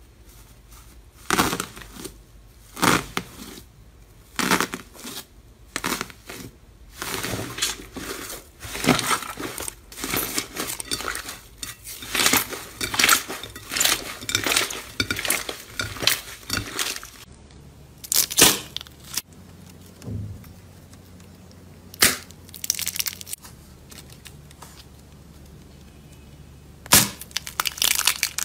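Hands pressing and kneading slime, at first through a sheet of plastic wrap, making a run of crinkling, crackling pops that grow dense and busy. About seventeen seconds in the sound changes to slower squeezing with only an occasional sharp pop, and it becomes busy again near the end.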